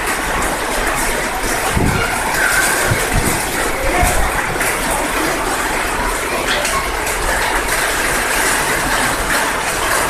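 Heavy rain falling in a storm, a steady loud hiss, with a few low gusts of wind buffeting the microphone a couple of seconds in.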